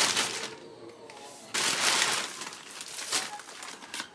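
Plastic courier mailer bag crinkling and rustling as it is opened and handled. The loudest burst comes about one and a half seconds in, with lighter rustles after it.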